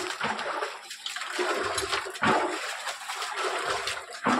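Muddy well water gushing and splashing out in a steady rush, with a few dull knocks mixed in.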